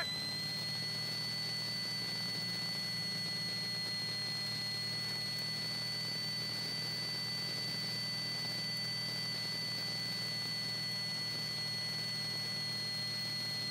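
Steady cabin noise of a Holden Commodore rally car cruising slowly: a constant low engine hum under an even hiss, with a steady high-pitched electronic whine.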